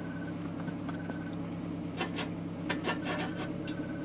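Steel car ramps being shifted and set in place on a tarmac driveway: a few short scrapes and knocks about two and three seconds in, over a steady low hum and a faint, intermittent high beeping.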